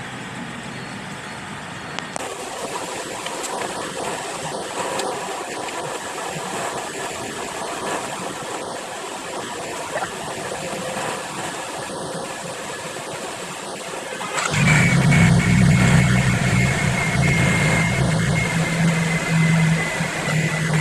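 A steady mechanical hum. About 14 seconds in, a louder, deeper hum with a thin high whine cuts in suddenly and holds.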